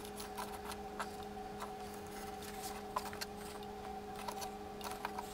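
Small clicks and ticks of a composite model-plane control surface being handled and flexed on its hinges, over a faint steady hum.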